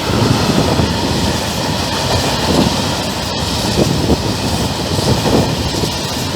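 Freight train of empty Eas open coal wagons rolling past, with the wheels thumping over rail joints every second or so, some thumps in quick pairs.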